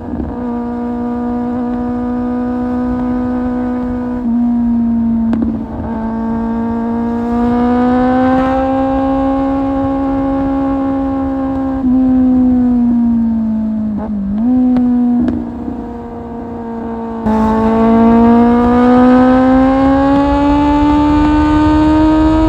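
Kawasaki Z750 inline-four engine through an Akrapovic exhaust, running under way. Its pitch climbs slowly and changes in sudden steps several times, about four and five seconds in, around twelve seconds, with a brief dip near fourteen seconds and a jump near seventeen seconds before climbing again.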